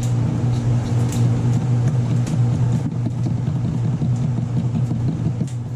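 A steady low machine hum, with a few faint clicks of a metal fork stirring yeast into water in a plastic tub.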